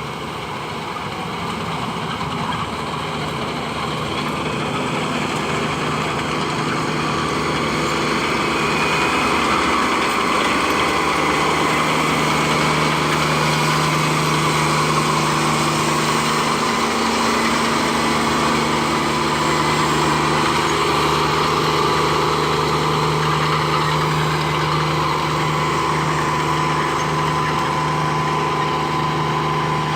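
New Holland 8080 combine harvester running steadily under load while harvesting rice, its engine and threshing drive making a constant drone with a high whine. It grows louder over the first several seconds, then holds steady.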